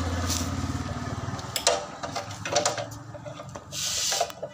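Rubbing and scraping noise with several sharp clicks, ending in a short hiss near the end.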